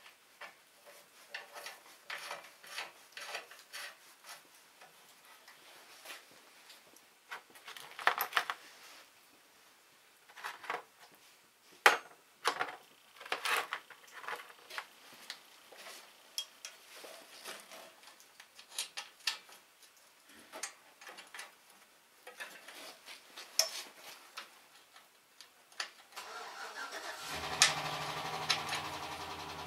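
Scattered metal clinks and clanks as tools and parts are handled on a garden tractor's rear axle and differential housing, the loudest knocks about 8, 12 and 13 seconds in. Near the end a steady low hum starts suddenly.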